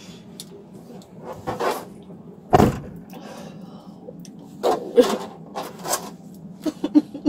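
A handcuffed person shifting about on the hard plastic rear seat of a police car: rustling, scrapes and knocks, with one heavy thump about two and a half seconds in, over the car's low steady hum.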